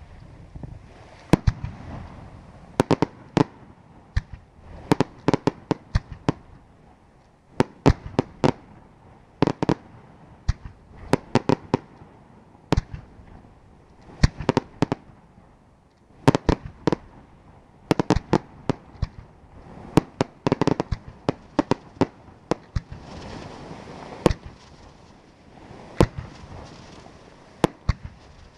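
Aerial fireworks display: sharp bangs from shell bursts, many coming in quick clusters of several reports, with a lower rumbling haze between them.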